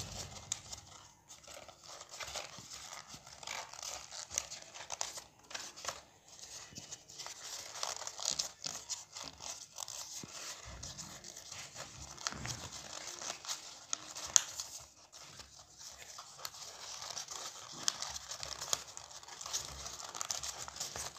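Stiff chart paper rustling and crinkling as fingers open out the folded petals of a paper lotus, with irregular sharp crackles, the loudest about fourteen seconds in.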